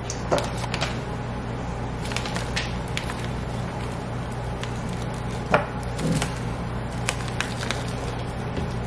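Light rustling of a plastic bag of almond flour with scattered small taps and clicks, and one sharper knock about five and a half seconds in, over a steady low hum.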